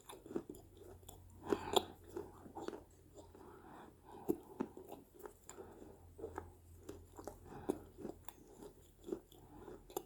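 Close-up chewing of crunchy small baked-clay pieces (clay mini pots), irregular crisp crunches with a few louder bites.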